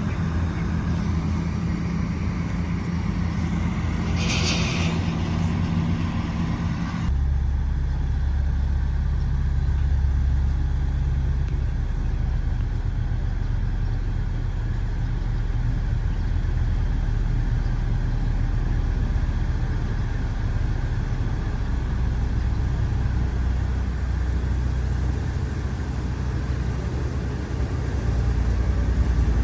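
Diesel engine of a motor grader running steadily. About four seconds in there is a brief hiss, and about seven seconds in the note changes abruptly to a deeper, heavier one that then holds steady.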